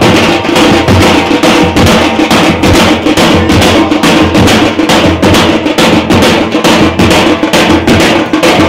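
Loud, continuous drumming and percussion, with rapid regular strokes over steady ringing tones, as played for a temple deity procession.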